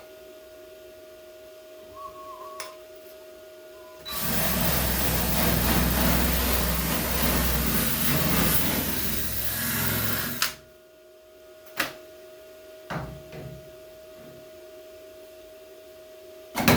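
MIG welder laying a bead on sheet-metal patch panels: a loud crackling hiss over a low electrical buzz that starts abruptly about four seconds in and stops about six seconds later. A few sharp clicks of metal follow.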